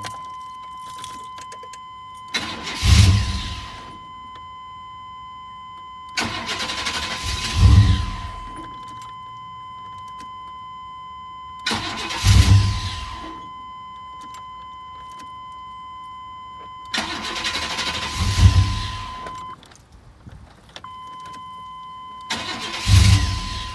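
1999 Chevrolet Tahoe's 5.7 V8 being cranked five times, about every five seconds; each attempt builds to a brief surge and then stops, and the engine does not stay running. This is the truck's hard-starting problem, tied by the owner to a corroded cab fuse. A steady electronic warning tone sounds behind the attempts, dropping out briefly near the end.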